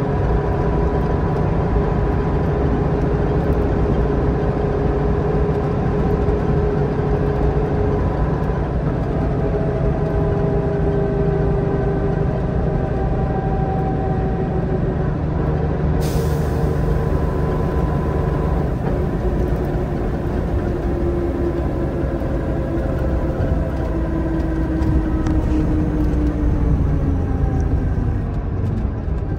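A Leyland Olympian double-decker bus's engine and drivetrain running hard at motorway speed, heard from inside the bus: a heavy, steady rumble with a whining note over it. Near the end the whine slides down in pitch as the bus eases off.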